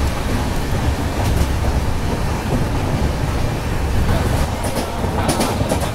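Passenger train coach running along the track, a steady low rumble heard from on board, with a few short clicks near the end.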